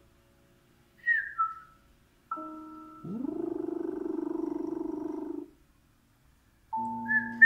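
African grey parrot giving a short two-note falling whistle, mixed with bell-like struck tones that ring and fade and a held, buzzy tone that slides up and then stays steady for about two and a half seconds. A sharp click comes right at the end.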